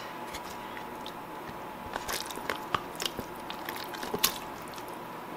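Silicone spatula scraping gelled broth out of a plastic tub and dropping it into a stainless steel pot: soft squishing with scattered clicks and taps, a few sharper ones in the middle, over a faint steady high hum.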